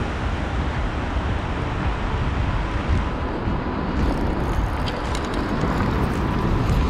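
Steady rumbling noise of wind buffeting the microphone, with a few faint clicks joining about four seconds in.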